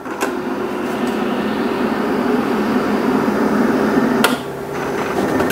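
Graphtec FC9000 cutting plotter's servo motors running as it moves the carriage and feeds the sheet to read the registration marks: a steady motor whine, broken by a click and a short pause about four seconds in before it carries on.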